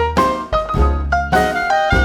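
Background instrumental music in a jazz style, with piano and a bass line playing a series of short notes.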